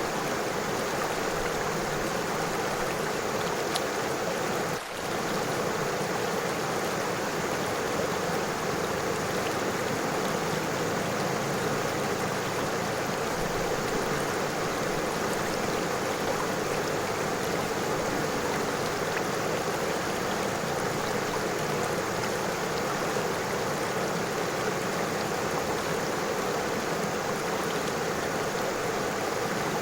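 A river flowing steadily over stones, a continuous rushing and burbling of water. The sound dips for a moment about five seconds in.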